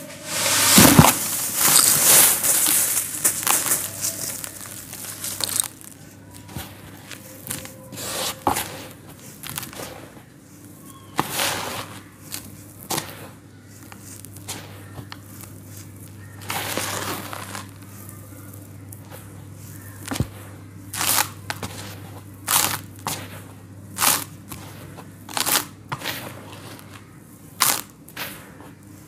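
Dry, crunchy yellow sand handled in a plastic bucket. A long loud rush of sand spills for the first few seconds, then hands grab and crumble handfuls, giving short crunchy bursts about once a second, with a longer pour around the middle.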